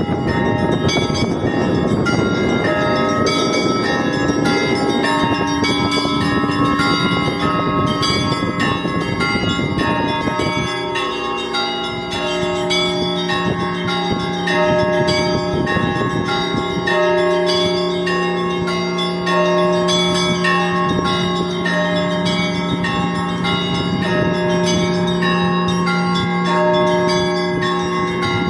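Church bells ringing: many bells struck in quick succession, their tones overlapping. About a third of the way in, a deep bell tone comes in and hangs beneath the faster strikes.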